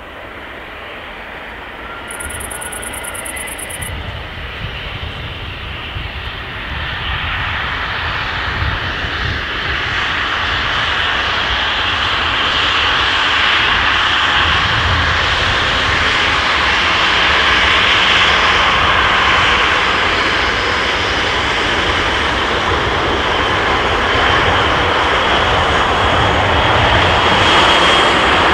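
Airbus A319's CFM56 turbofan jet engines on approach, growing steadily louder for about the first half and then holding loud, with a faint high fan whine over the broad engine noise.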